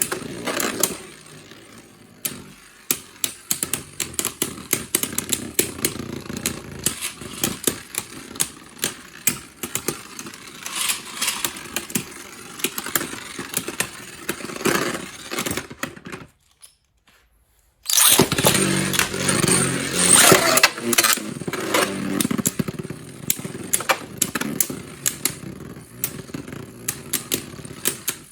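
Beyblade Burst spinning tops whirring and clashing: a dense run of quick clicks and knocks of plastic and metal parts striking each other. About two-thirds through it cuts to silence for a second or so, then comes back louder.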